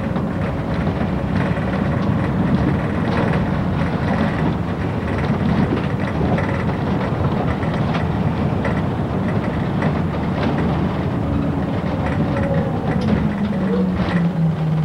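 Service bus driving, heard from inside the cabin: engine drone and road rumble with frequent small clicks and rattles. Near the end the engine note shifts and steps down.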